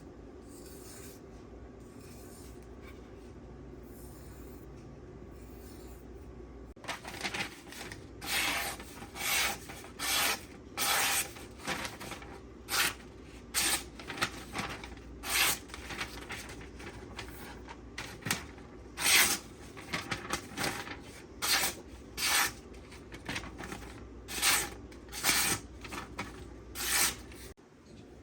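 Steel knife blade (M390) drawn in repeated strokes across a sharpening stone, a little more than one stroke a second with some quick pairs, starting about seven seconds in. These are the finishing cleanup passes to minimise the burr.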